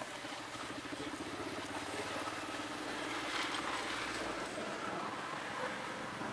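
A motor vehicle's engine running steadily.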